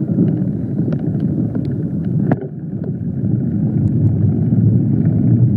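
Wind buffeting the microphone of a camera carried on a moving mountain bike on a dirt trail: a loud, low rumble that grows a little louder in the second half, with scattered sharp clicks and knocks as the bike rattles over the bumps.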